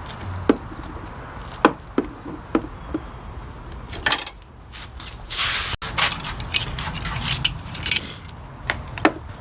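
Metal hand tools and parts clinking and scraping on a car battery terminal clamp as it is spread open and fitted over a post shim: a run of sharp taps and clicks, with longer scraping noises in the middle and again near the end.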